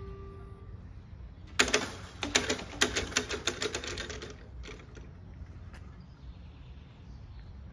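Level-crossing barrier booms rattling with a rapid, irregular clatter of sharp clicks for about three seconds as they settle onto their rests after lowering. Just before, the crossing's electronic bell sounds its last steady tone and stops within the first second.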